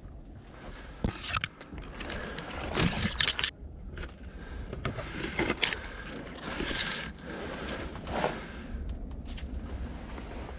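Irregular scraping and rustling, in bursts a second or two apart with a few sharp clicks: a player's footsteps and gear moving.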